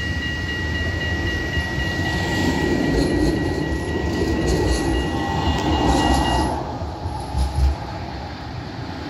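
A low-floor electric tram rolls past close by on grassed track. Its rolling noise swells as it passes and carries a series of wheel clicks. A steady high wheel squeal stops about two-thirds of the way through, and a couple of low thumps come near the end.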